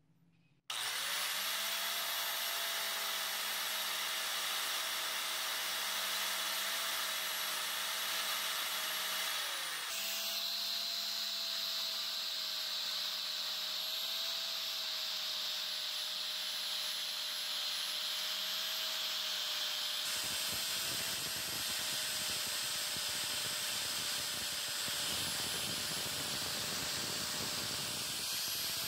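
Angle grinder with a red abrasive disc polishing a steel claw hammer head: the motor starts suddenly about a second in and runs with a steady high whine. The whine dips briefly about a third of the way in, then picks back up, and the sound turns grittier with more low rumble in the last third.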